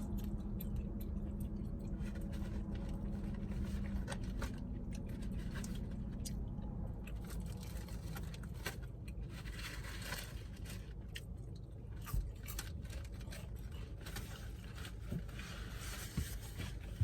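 A person chewing and crunching food close to the microphone, with scattered small crackles and clicks. A steady low hum runs under it and fades after the first several seconds.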